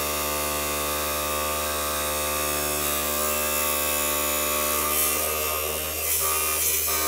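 HTD lapidary trim saw's electric motor running with a steady hum while its blade cuts into a thunder egg, a hiss over the hum. The hiss of the cut gets rougher and louder from about five seconds in.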